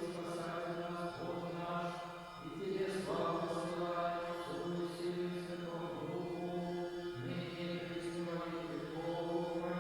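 Church chant: voices sing slow, sustained notes in phrases a few seconds long, with short breaks between the phrases.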